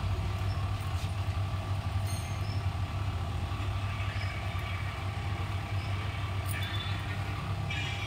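Steady low background hum, with a few faint ticks now and then.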